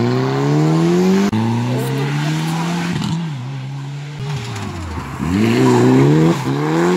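Rally car engines revving hard as the cars pass on the stage. The pitch climbs, drops sharply about a second in at a gear change, falls away in the middle, then climbs again and is loudest near the end.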